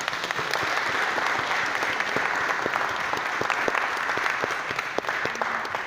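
Congregation applauding, many hands clapping together; the applause holds steady and begins to die down near the end.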